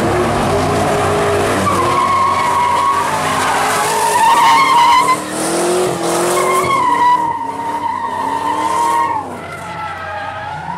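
Fourth-generation Pontiac Firebird doing a burnout: the tyres squeal in long, wavering tones over the engine revving up and down. The squeal and engine ease off about nine seconds in.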